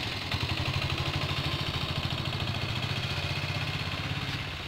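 An engine idling nearby with a steady, fast throb of about ten beats a second.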